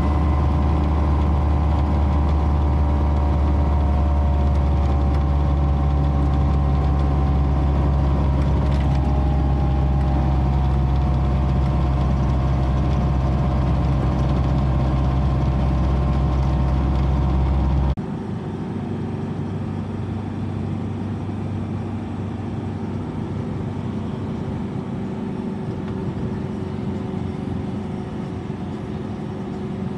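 Engine and road noise inside the cab of an old vehicle driving along, a loud steady sound with a strong low hum. About two-thirds of the way through it cuts abruptly to the quieter, steady engine and tyre noise inside the cab of a newer four-wheel-drive.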